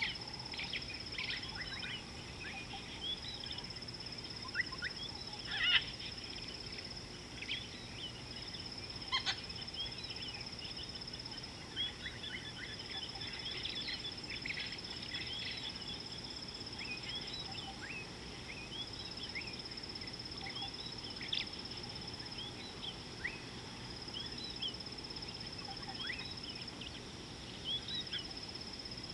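Many wild birds chirping and whistling in short calls, over a steady high insect trill that breaks off and starts again every few seconds.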